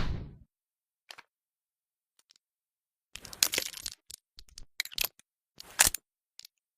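The ring of a revolver shot dies away in the first half second. Then the revolver's mechanism clicks: one faint click about a second in, and a run of sharp metallic clicks and rattles from about three to six seconds in.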